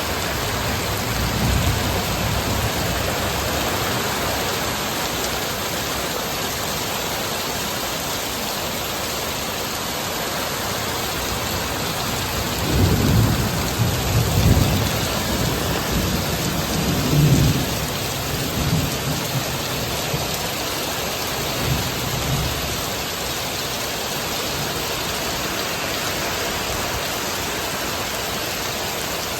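Heavy rain pouring steadily, with rolling rumbles of thunder swelling up several times about halfway through.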